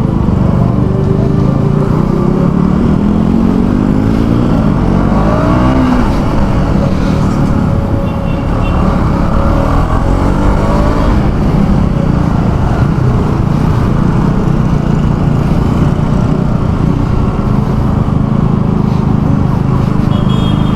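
KTM Duke 200's single-cylinder engine pulling the motorcycle along under steady road noise, rising in pitch as it accelerates twice, about a third of the way in and again around the middle.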